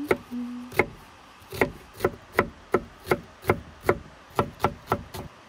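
Chef's knife dicing spring onion on a wooden cutting board: a run of sharp knocks as the blade strikes the board, two slow ones and then a steady rhythm of about three a second.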